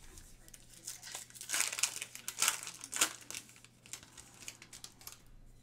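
Foil trading card pack wrapper crinkling and tearing as it is handled and opened, loudest in the middle, then fading to a few light rustles of cards.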